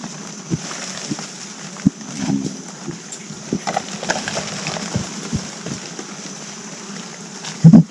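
Agile mangabeys moving about on the forest floor: scattered rustles and knocks in dry leaf litter, with a louder cluster of thumps near the end, over a steady high-pitched hiss.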